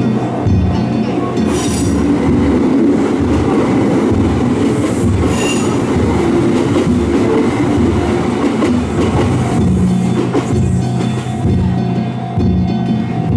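A Kintetsu Minami-Osaka Line train passing over a level crossing, its wheels running on the rails for about ten seconds. The steady beat of danjiri festival drums carries on underneath.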